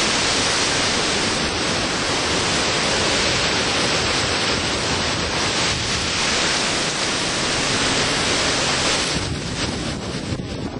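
Hurricane wind and driving rain rushing steadily, with gusts buffeting the microphone. The rush eases a little near the end.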